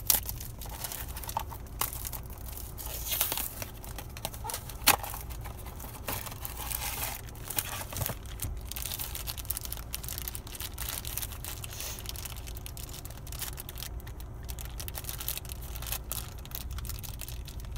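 Foil blind-bag pouch crinkling and tearing as a Funko Mystery Minis figure is unwrapped by hand: irregular crackles throughout, with one sharper, louder crackle about five seconds in.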